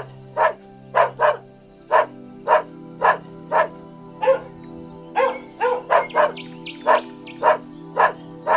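Dog barking repeatedly in short sharp barks, roughly two a second and some in quick pairs, with a few higher-pitched yelping calls mixed in about five to six seconds in.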